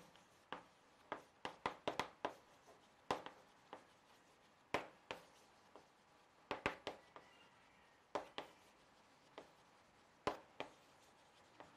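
Chalk writing on a blackboard: faint, irregular taps and short scratches as each stroke of chalk meets the board.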